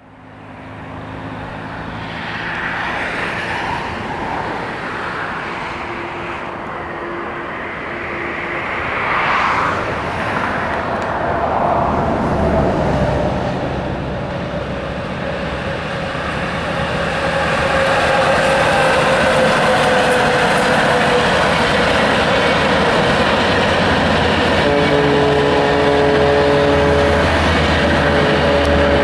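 Approaching passenger train hauled by an E-30 class electric locomotive: a steady rumble that grows louder over the first half and then stays loud, with steady pitched tones sounding in short spells near the end.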